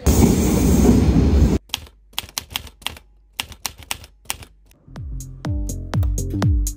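A loud rush of noise for about a second and a half, then a typewriter sound effect: irregular key clicks for about three seconds. Electronic music with deep bass notes sliding downward comes in about five seconds in.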